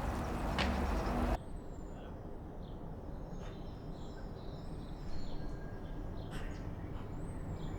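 Outdoor park ambience: birds chirping every second or two over a steady low rumble of distant city traffic. A louder, noisier ambience cuts off abruptly about a second and a half in.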